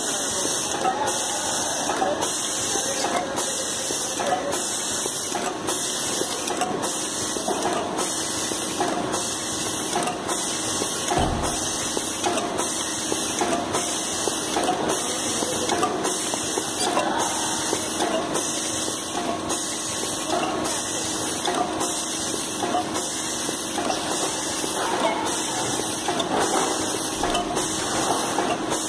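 Rotary ice cream cup filling machine running, cycling about once a second as the turntable indexes and the nozzles fill and lid the cups: a hiss pulsing with each cycle over short mechanical clacks.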